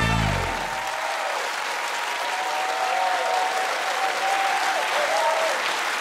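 Studio audience applauding. The last chord of the show's theme music dies away in the first second.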